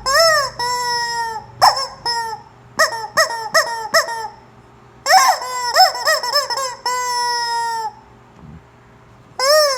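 Rubber chicken squeeze toy squeaking as it is squeezed: long held squeals mixed with short rising-and-falling squawks, in three runs with brief pauses about four seconds in and near the end.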